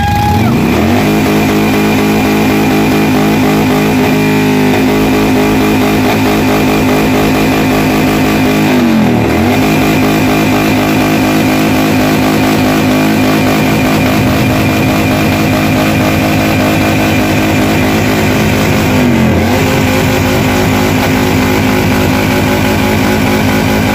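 Custom V-twin motorcycle engine held at high revs, running steadily. The revs drop briefly and pick straight back up twice, about nine seconds in and again near nineteen seconds.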